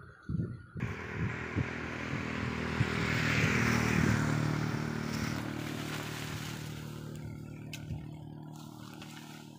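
A motor vehicle passing by, its engine sound building to a peak about four seconds in and then slowly fading away, with a few sharp knocks in the first couple of seconds.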